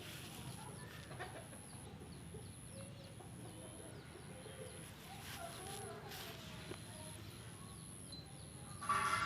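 Chickens clucking softly in the background, many short calls, with one louder call near the end.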